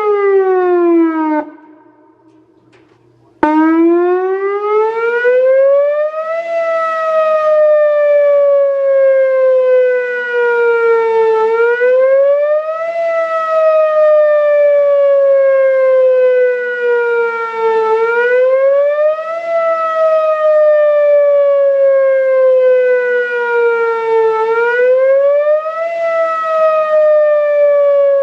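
Whelen WPS-2804 electronic tornado siren. One signal falls in pitch and cuts off about a second and a half in; after a gap of about two seconds a new signal starts suddenly and wails, rising for a second or two and falling slowly over about five, repeating about every six and a half seconds.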